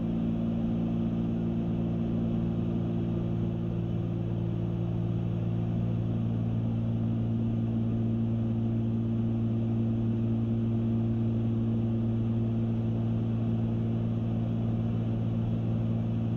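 Cessna 310Q twin-engine piston airplane in cruise flight, heard from inside the cockpit: the two engines and propellers make a steady, even drone that holds the same pitch throughout.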